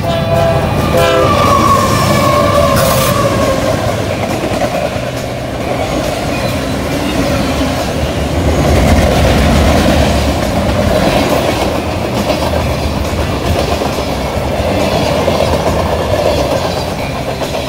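Union Pacific freight train passing close by: the diesel locomotives pass with a tone that slides down a second or two in, then a long string of autorack cars and pipe-loaded flatcars roll past with a steady rumble and wheel-on-rail noise.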